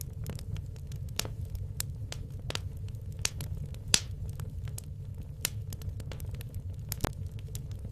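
Firewood logs burning in a fireplace: irregular sharp crackles and pops over a low, steady rumble of the flames, with one louder pop about four seconds in.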